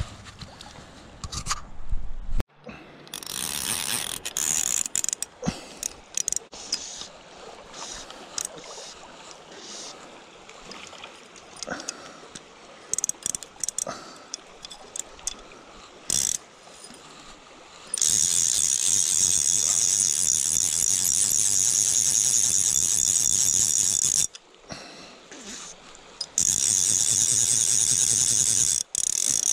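Fly reel's click-and-pawl drag ratcheting in a steady high rasp as line is wound in. It starts past the middle, stops for about two seconds, then resumes. Scattered handling clicks and knocks come before it.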